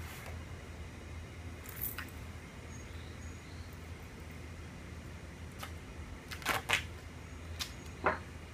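Light handling noise from metal pool-wall parts: a few scattered short clicks and taps, two louder ones close together about two-thirds of the way in, over a low steady hum.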